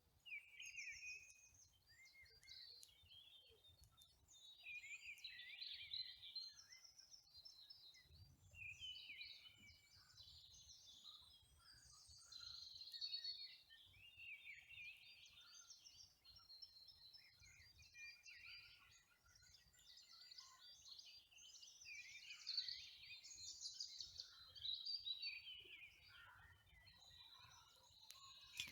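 Faint songbirds singing, several short warbling and chirping phrases overlapping throughout, with a faint low rumble beneath.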